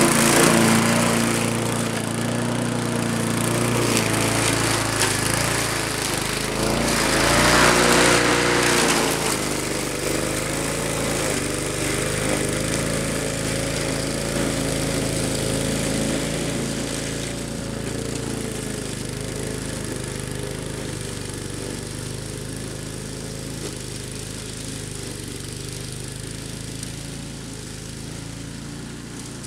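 Walk-behind lawn mower engine running steadily while cutting tall ragweed, with a louder rush of cutting noise and a wavering engine note about seven seconds in. The sound slowly fades as the mower moves off.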